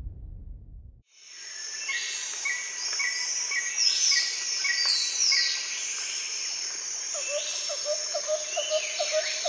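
Birds singing and calling over a steady high insect drone, with sweeping whistled notes and repeated chirps. Near the end a quick, lower, evenly repeated call joins in. For about the first second only a low rumble is heard, and it cuts off before the birdsong begins.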